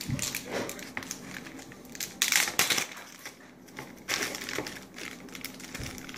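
Crinkling and rustling of a shiny black plastic wrapper being torn open and handled by hand, in irregular bursts, the loudest a little over two seconds in.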